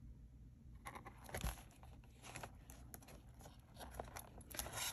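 Faint rustling and scraping of a paper journal cover being handled as elastic is threaded through its spine holes, with scattered small clicks that get busier near the end.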